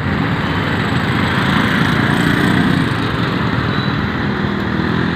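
Street traffic: small motorcycle engines running close by over the hum of passing cars, loudest in the middle.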